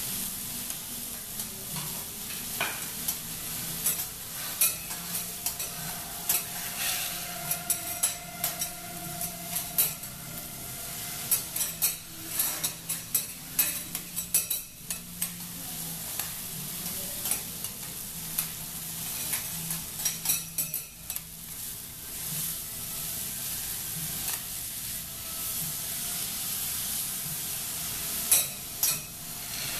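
Food sizzling on a teppanyaki steel griddle, with metal spatulas scraping across the hot plate and striking it in many sharp clicks.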